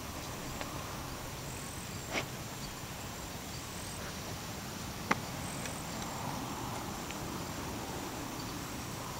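Outdoor field ambience: faint high insect chirping that comes and goes over a steady low hiss, with a short click about two seconds in and a sharper, louder click about five seconds in.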